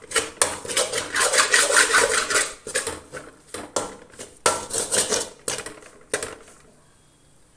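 Metal spatula stirring and scraping thick masala around a metal kadai: a quick run of rasping scrapes and clinks against the pan that stops a little over six seconds in.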